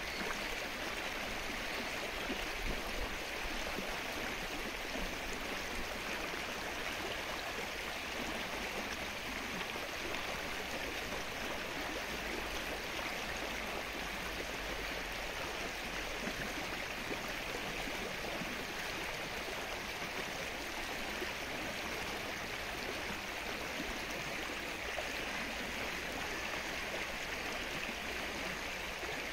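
Steady rain falling onto lake water, an even hiss that holds without a break.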